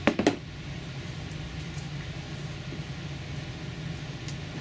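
A few sharp knocks of a hard plastic storage box being handled and turned, then a steady low mechanical hum.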